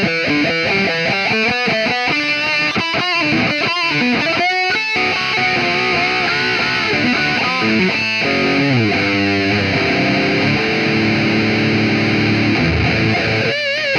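Distorted electric guitar playing a fast lead line: quick runs of notes, a descending run about eight seconds in, then a held chord and wavering bent notes near the end.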